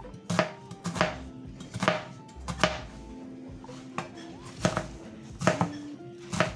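Chef's knife chopping an onion on a plastic cutting board: the blade goes through the onion and knocks on the board about once a second, at an uneven pace.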